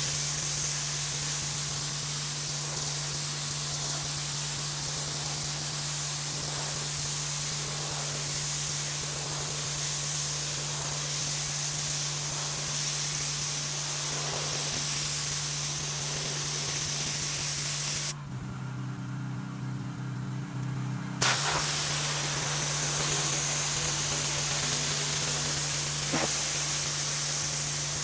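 Pressure washer spraying water onto a concrete driveway: a steady hiss of spray over the engine's constant hum. A little past halfway the spray stops for about three seconds, leaving only the engine, then starts again with a click.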